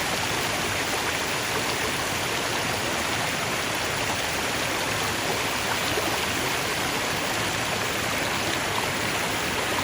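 Flowing water, a stream running steadily over stones, an even rushing and splashing.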